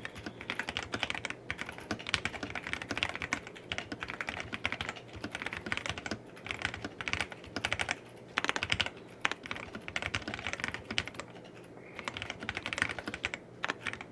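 Typing test on an AJAZZ AK820 mechanical keyboard fitted with Durock Milky Yellow linear switches and a tape mod: rapid, uneven runs of keystrokes with a couple of short pauses.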